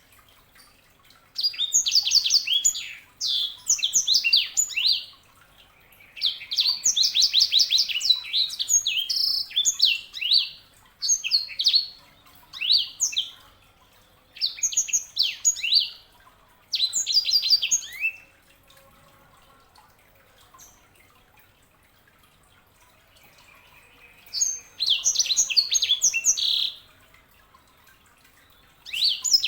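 Sanger songbird singing in short bursts of fast, high trilled phrases, each lasting one to four seconds, with pauses between them and a longer pause around the middle.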